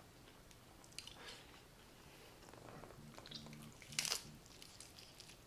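A bite into a crisp, home-fried taco shell, one sharp crunch about four seconds in. Faint chewing comes before it.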